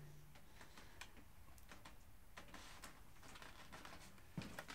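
Near silence with faint, irregular ticks and clicks of mounting bolts being wound into the subframe, and a sharper click near the end.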